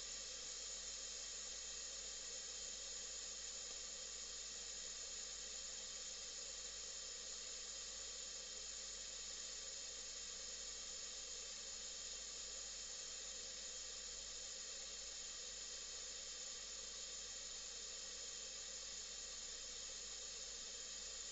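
Steady, even hiss of FM static from a radio built on a Sony 1619 receiver chip and a 6283 amplifier board, the noise of a receiver that is not tuned to a station.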